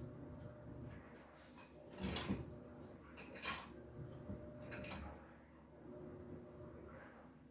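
Household handling noises: a few short clicks and knocks, with a brief louder scrape about two seconds in and another about three and a half seconds in, over a faint steady hum.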